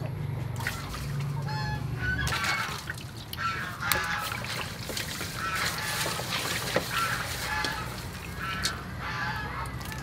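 Domestic waterfowl calling again and again in short calls, with water sloshing and light clicks as hands wash raw catfish in a steel bowl.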